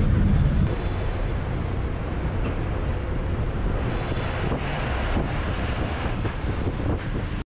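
Steady engine rumble and road noise of a TNSTC bus heard from inside the moving bus, with wind buffeting. Near the end the sound cuts off abruptly.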